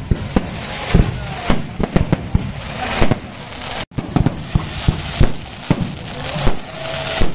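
Aerial fireworks display: rockets launching and shells bursting overhead in a rapid, irregular string of bangs and crackles. The sound drops out for an instant about four seconds in.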